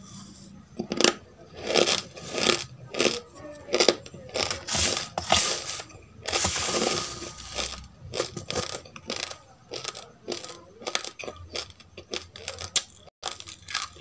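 Dry roasted rice grains crunched between the teeth: a run of sharp, crisp crunches about two a second, then a longer rustling stretch as the spoon scoops through the grains on the plate, followed by softer chewing.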